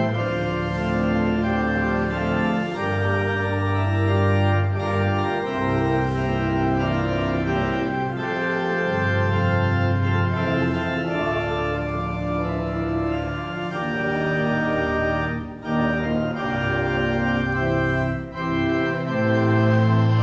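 Church organ playing a slow hymn-like piece in sustained full chords over a deep bass line. The chords change every second or two, with short breaks between phrases about three-quarters of the way through.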